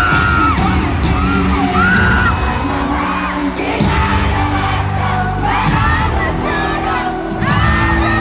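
K-pop group performing live over an arena sound system: loud pop music with a heavy bass and singing, with the crowd cheering along.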